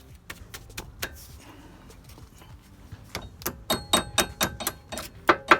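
Metal hand tools clinking and tapping against steel suspension parts, a series of sharp strikes with a brief ring. They are scattered at first, then come quicker and louder in the second half.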